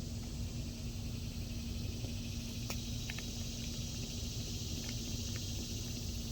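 Low steady background hum with one held tone and a few faint, sharp clicks.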